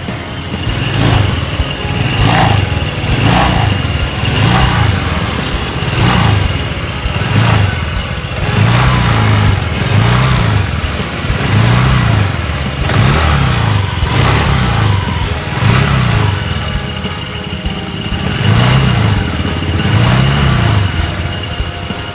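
Honda Vario 150 scooter's single-cylinder engine and CVT revved again and again, about fifteen throttle blips in a row, each rising and falling in pitch, with a rough, grating 'ngerosok' rattle. The owner blames a dirty CVT, but the mechanic traces the rattle to the radiator cover vibrating, since wedging rubber under it makes the noise go away.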